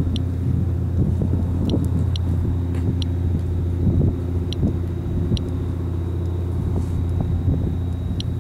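An Inspector+ Geiger counter chirps at irregular intervals, one short high beep per detected count, about seven in the stretch. That sparse rate is ordinary background radiation, with the meter reading about 0.09 µSv/h. Under the chirps runs a steady low engine drone.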